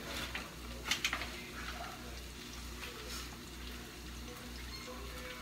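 Sliced onions frying in grease in a skillet, a steady sizzle, with a couple of light clicks about a second in and again near three seconds.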